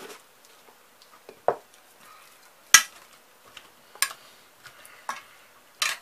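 Metal spoon clinking and scraping against an enamel pot while stirring sliced cucumber salad: about six separate clinks roughly a second apart, the loudest near the middle.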